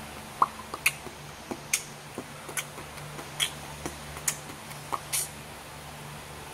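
A person eating a sauce-covered chicken wing: scattered short wet mouth clicks and lip smacks, roughly one every half second to second, over a low steady hum.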